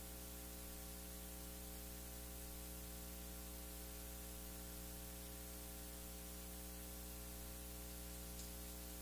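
Steady electrical mains hum with hiss, unchanging: the sound system's own noise, with no singing or other sound over it.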